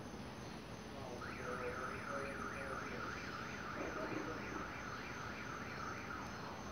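An electronic alarm chirping in quick rising sweeps, about three a second, starting about a second in and stopping near the end, over a steady low background hum.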